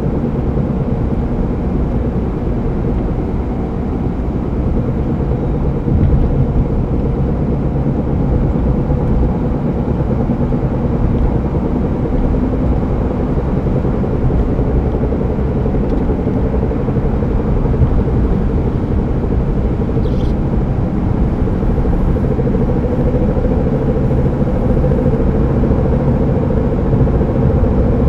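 A car driving along with steady road rumble and a continuous hum from the driver-side front wheel area. The uploader says the noise gets louder with speed and does not change when braking or turning, and suspects a bad tire or a drivetrain fault.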